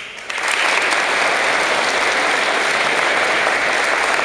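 Audience applauding, starting suddenly and reaching full strength within about half a second, then holding steady.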